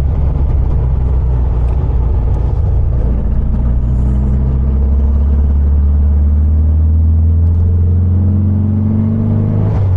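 1974 VW 1303S Super Beetle's 1915cc air-cooled flat-four engine pulling under acceleration, heard from inside the cabin. Its note climbs steadily from about three seconds in, then falls away just before the end.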